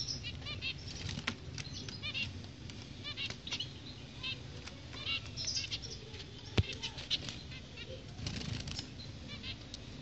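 Caged zebra finches calling with short, high chirps in quick runs of a few notes, over the fluttering of wings as the birds flit about. There is a sharp knock about two-thirds of the way through.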